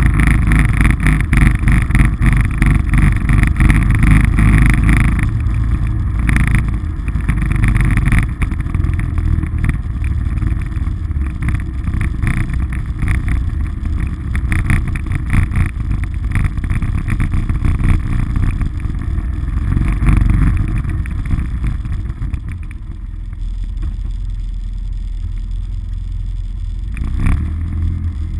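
Polaris RZR side-by-side's engine running as it drives on a wet road. It settles to a quieter, steady idle about three-quarters of the way through, then picks up briefly near the end.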